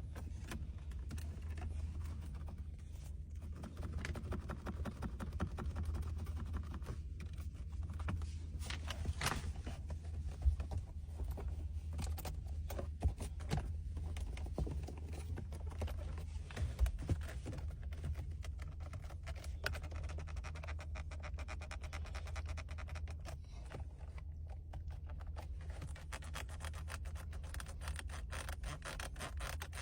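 Interior trim in a 2019 Ford F-150 Lariat's cabin creaking, clicking and scraping as the panels and console parts are pressed, tapped and moved, over a steady low hum.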